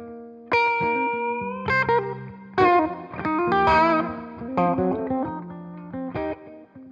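1980 Greco EG-500 Les Paul-style electric guitar with Maxon humbucking pickups, played through a Headstrong Royal Reverb valve amp: a phrase of picked single notes and chords, some notes held and shaken with vibrato.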